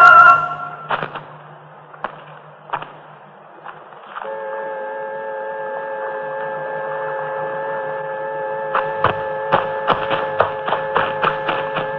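Electronic sci-fi sound effect. A low, steady hum with a few scattered clicks gives way, about four seconds in, to a hum of several steady tones. Sharp even clicks join it near the end, about three a second.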